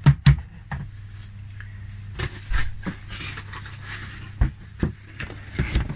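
Plastic toy parts being handled: a few short sharp clicks and knocks, two at the start, then scattered through the rest, over a steady low hum.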